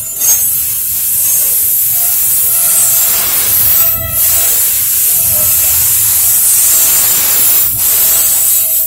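Double-stack intermodal freight train's container well cars rolling past close by: a loud, steady rush of wheel-on-rail noise over a low rumble.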